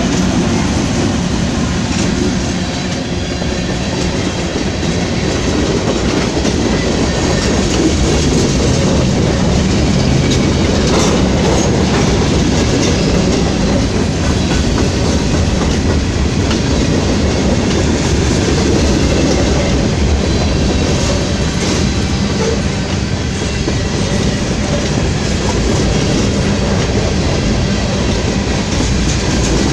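Mixed freight train's cars rolling past without stopping, steel wheels clacking over rail joints over a steady loud rumble.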